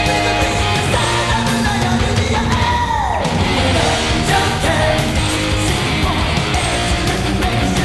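Heavy metal band playing a loud rock song with electric guitars and drums. About three seconds in, one high note slides steeply down.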